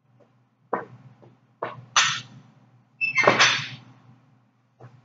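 Loaded barbell clanking and rattling during power clean reps: a sharp knock just under a second in, then two longer clattering bursts with some metallic ringing at about two and three seconds in.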